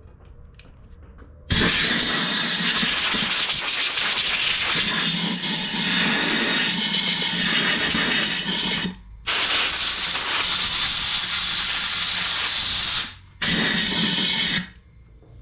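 Compressed-air blow gun blasting air through a drained fuel-system part to clean it: a loud, steady hiss that starts suddenly, breaks off briefly twice and ends shortly before the end, three blasts in all.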